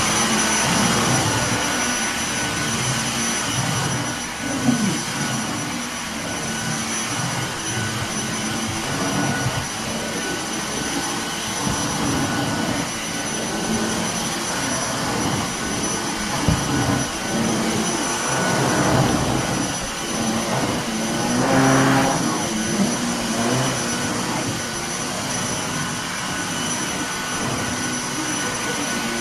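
Vacuum cleaner running steadily, a loud rushing noise with a thin high whine.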